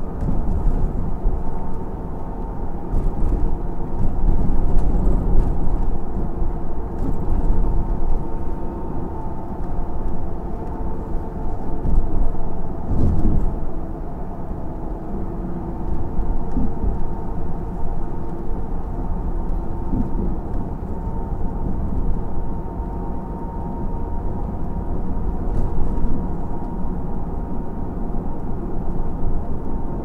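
Steady low rumble of a moving vehicle heard from inside, swelling and easing with the ride, with a few faint knocks and a faint steady hum.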